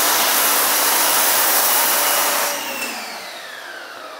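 Active 2.0 electric pressure washer spraying foam through an MJJC foam cannon: a loud, steady hiss that stops about two and a half seconds in. The pump motor then winds down with a falling whine.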